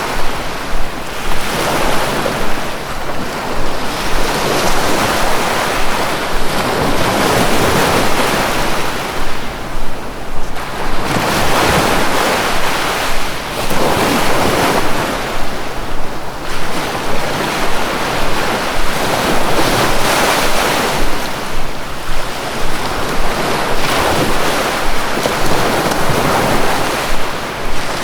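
Sea waves breaking and washing on a shore: a continuous rush of surf that swells and eases every few seconds, with gusts of wind on the microphone.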